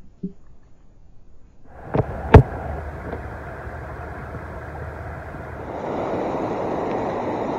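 Muffled near-quiet from underwater with a faint knock. About two seconds in come two sharp clicks, then the steady rush of river water running over shallow riffles, which grows louder past the middle.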